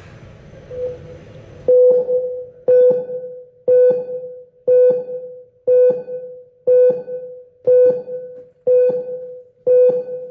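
Beep test (multistage shuttle-run) recording playing its countdown: about nine identical electronic tones, one a second, each struck sharply and fading. These lead-in beeps are not yet the signal to run.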